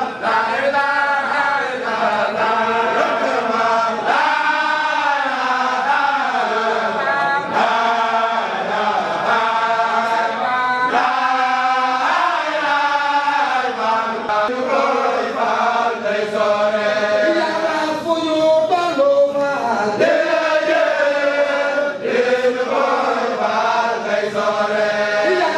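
A group of Baye Fall Mouride men chanting a Sufi zikr together, many voices in unison. The phrases are long and held, and they slide up and down in pitch with no pause.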